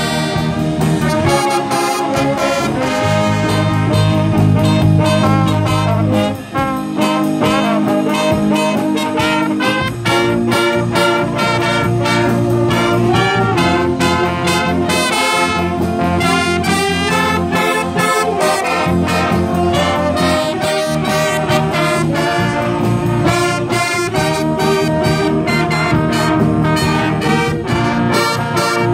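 A band playing a brass-led swing-style jazz number, with trombones and trumpets to the fore. The music dips briefly about six and a half seconds in.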